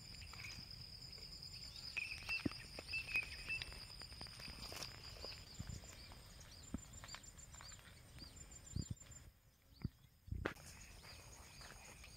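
Outdoor ambience: a steady high-pitched insect buzz with many short repeated chirps, and a few faint knocks.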